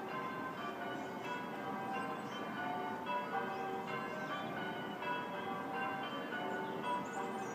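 Church bells ringing a continuous peal, several bells of different pitches struck one after another, a few strikes a second, each ringing on over the next.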